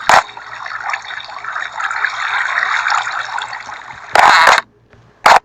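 Water running steadily, with a short loud burst at the start and a louder half-second rush about four seconds in, after which it stops and goes nearly quiet.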